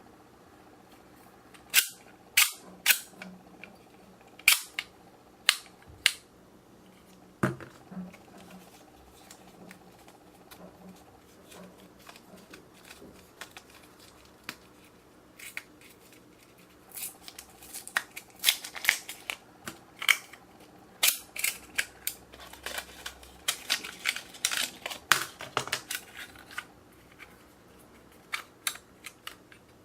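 Irregular sharp clicks and taps from small objects being handled, sparse at first and coming thick and fast in the second half.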